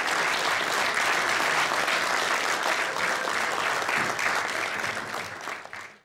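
Audience applauding, a dense steady clapping that dies away in the last second.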